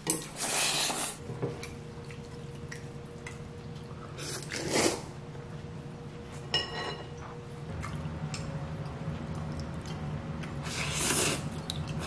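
Jjolmyeon noodles being slurped, in three short bursts: just after the start, near the middle and near the end. There is a light clink of a utensil against a ceramic bowl in between, over a steady low hum.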